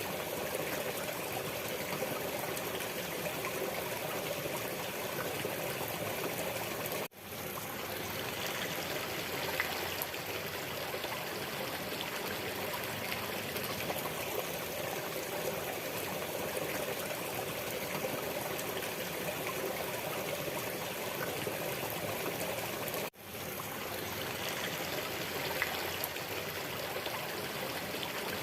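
Waterfall water rushing and splashing steadily. Twice, about seven seconds in and again near twenty-three seconds, the sound cuts out for an instant and quickly fades back in.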